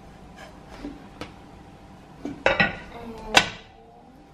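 Kitchen clatter: a spatula, frying pan and plate knocking against one another a few times, in sharp clinks and knocks, the loudest about three seconds in with a short ring.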